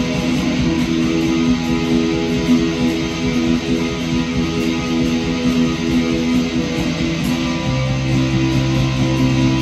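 Live psychedelic rock instrumental: strummed electric guitar ringing with droning, held notes. A deep, steady low note comes in near the end.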